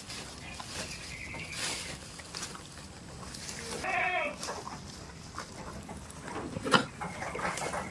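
Goats bleating: a few short calls, the clearest about halfway through, over rustling, with one sharp click near the end.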